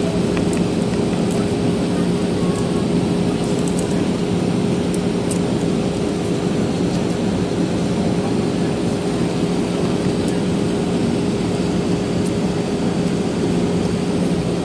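Airbus A320-214 cabin noise in flight: a steady rush of air and CFM56 engine noise with a low, even hum, heard from inside the cabin.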